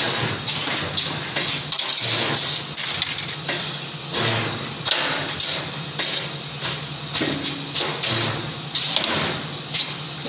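Automatic CNC wire bending machine with a butt spot welder running through its cycle: frequent short rushes of air from its pneumatic cylinders and sharp mechanical clacks over a steady low hum.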